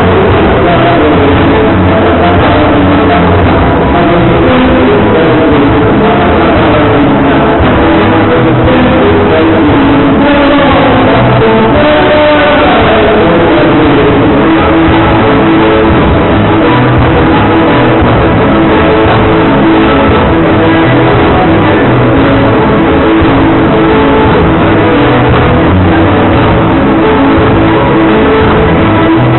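Live gaúcho dance-band music, loud and continuous with a steady beat.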